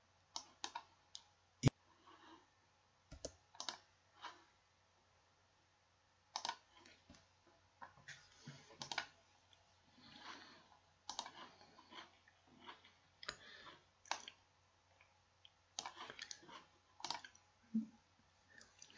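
Faint, irregular clicks of a computer mouse, single and in small clusters.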